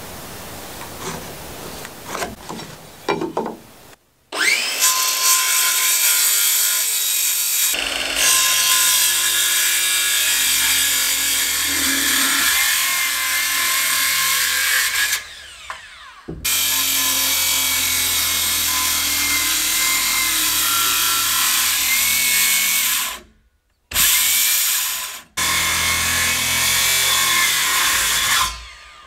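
Power tools working framing lumber in several short clips that start and stop abruptly: a saw cutting through a wooden post and a drill/driver running screws into a 4x4 beam. The first few seconds are quieter, with scattered knocks of wood being handled.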